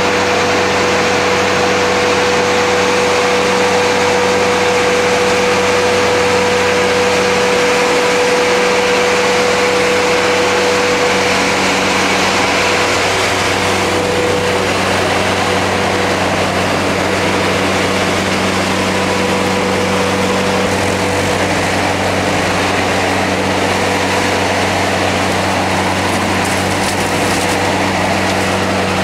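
Bobcat A300 skid steer's diesel engine running steadily under work as the machine drives and handles brush with its hydraulic grapple, with a steady whine over the drone.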